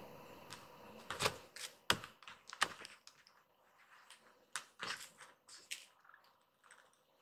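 Quiet, irregular soft clicks and rustles of a hand handling a small kitten on fabric bedding, with scattered taps bunched in the first few seconds and again a little past the middle.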